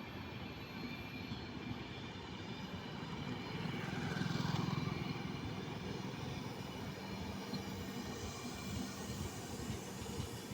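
Train running with a steady rumble that swells louder about four seconds in, then settles.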